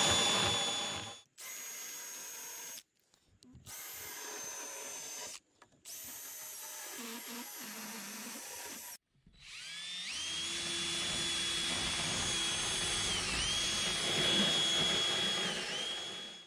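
Cordless drill spinning a round deburring bit at top speed, routing foam core out from between fiberglass skins: a steady high whine. It runs loud for about a second, then drops to much quieter stretches broken by several abrupt cuts. About ten seconds in it spins up again and runs steadily, its pitch dipping briefly twice as the bit bites into the foam.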